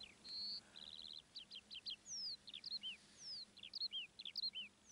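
A small bird singing faintly: a quick trill near the start, then a string of short, high chirps and downward-sliding whistled notes.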